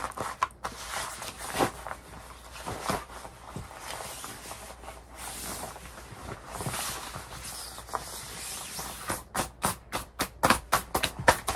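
Yellow PVC rain pants rustling and crinkling as the wearer shifts about and handles her top over the waistband, in scattered short strokes, with a quick run of sharp taps near the end.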